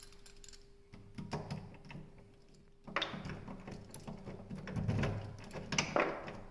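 Keys on a chain jingling and a round doorknob lock being worked, with sharp metallic clicks and rattles about a second in, again about three seconds in, and around five to six seconds in.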